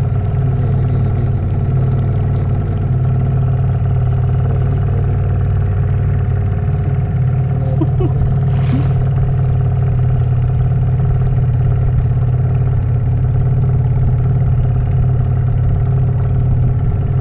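A boat's outboard motor running steadily, an even drone that holds at one pitch throughout.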